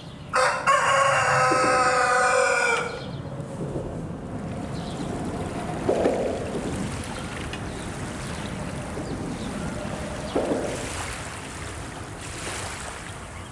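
A rooster crows once, loud and long, starting about half a second in and lasting over two seconds. Two short, fainter calls follow later over a steady outdoor background.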